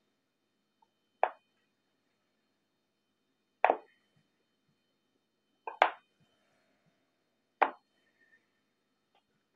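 Stainless steel bench scraper pressed down through set chocolate fudge, its blade knocking on the bottom of the glass baking dish four times, about every two seconds.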